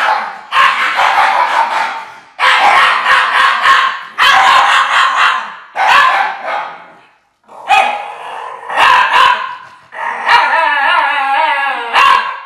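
Shiba Inu howling in a string of about eight drawn-out calls, each a second or two long. The last and longest call wavers in pitch.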